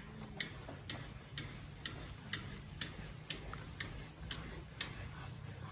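Faint, regular clicking, about two clicks a second, over a low steady hum.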